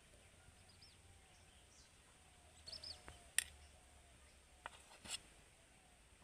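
Faint small-bird chirps now and then, and a few sharp clicks, the loudest about three and a half seconds in.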